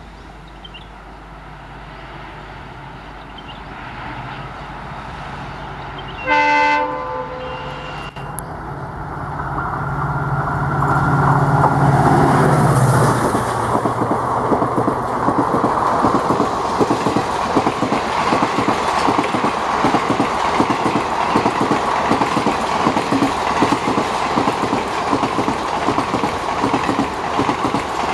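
WDP-4D diesel locomotive (EMD design) approaching at high speed. It sounds one short horn blast about six seconds in, and its engine note swells as it passes a few seconds later. Then the coaches run by with a steady, rapid clickety-clack of wheels over the rail joints.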